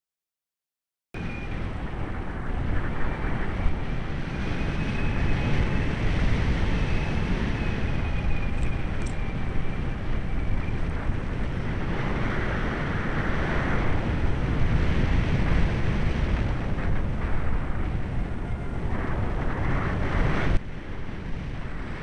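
Wind rushing over an MD80 microcam's microphone in paragliding flight: a loud, steady buffeting that starts suddenly about a second in and eases slightly near the end.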